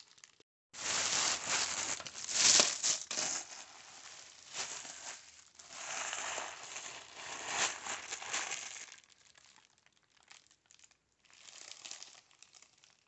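Packaging being unwrapped by hand: irregular bursts of crinkling and rustling wrap, loudest about two and a half seconds in, thinning to faint rustles after about nine seconds.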